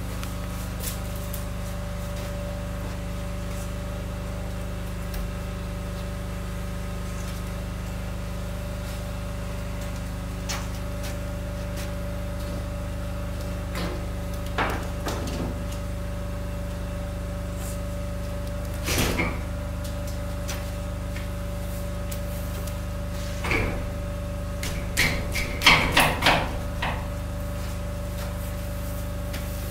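A window frame knocking and thudding against its steel opening as it is pushed and settled into place: a few knocks about halfway through and a louder cluster near the end. A steady machine hum runs underneath throughout.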